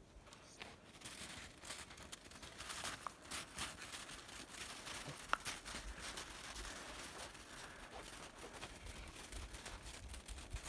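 Faint rustling and crunching with scattered small clicks, like movement through forest-floor litter, and one brief high squeak about five seconds in.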